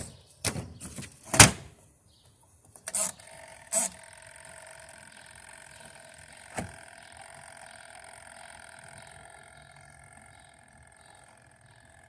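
Hard plastic knocks and clicks as the spin-dryer tub cover and lids of a twin-tub portable washing machine are handled and shut, the loudest about a second and a half in. After that there is only a faint steady hum: the machine does not start.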